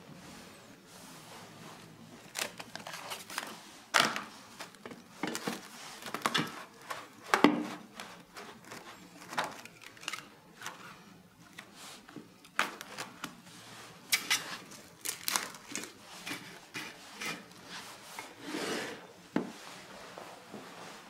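Plastic cling wrap being pulled off its roll, torn and stretched over a baking dish: a run of short crinkling, rubbing rasps.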